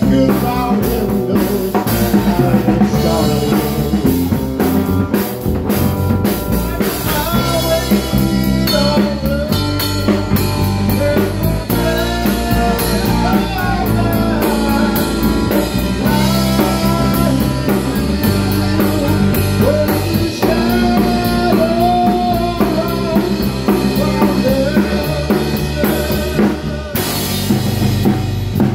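Live rock band playing: a drum kit keeping the beat under electric guitars, with a lead line of bent notes.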